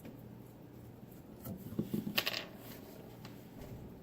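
Faint rustling and small clicks of electrical wires being handled as twist-on wire connectors are unscrewed from them, busiest about two seconds in.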